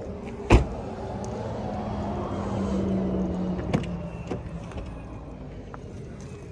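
A car door slams shut with one sharp bang about half a second in. A passing car then swells and fades away over the next few seconds, with a lighter click near the middle.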